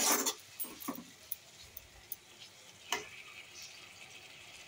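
Metal spatula stirring and scraping a spiced onion-tomato masala frying in a kadai, with a faint sizzle of oil under it. A loud scrape comes right at the start, a couple of lighter strokes follow about a second in, and one sharp stroke comes just before three seconds.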